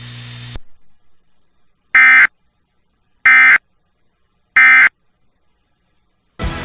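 Emergency Alert System end-of-message signal: three short, identical digital data bursts of buzzing tones, each about a third of a second long and about 1.3 seconds apart, marking the end of the severe thunderstorm warning. Music comes in near the end.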